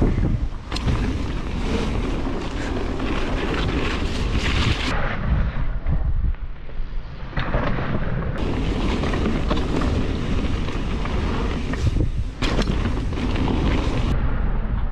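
Wind buffeting an action camera's microphone as a mountain bike is ridden down a dirt trail, a steady low rumble with scattered sharp knocks and rattles from the bike going over bumps.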